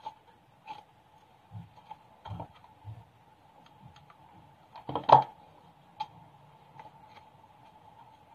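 Scattered light clicks and taps from handling a plastic bottle and a hot glue gun, with one louder knock about five seconds in, over a faint steady hum.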